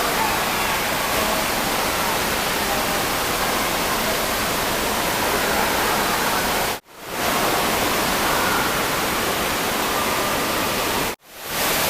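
Steady rushing noise of water-park water features, like falling water. It is broken twice by brief drops to silence, about seven and eleven seconds in.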